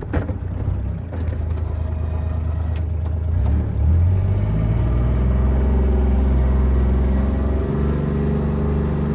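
Side-by-side UTV engine running under load while plowing snow, revving up about four seconds in, holding steady, then easing off near the end.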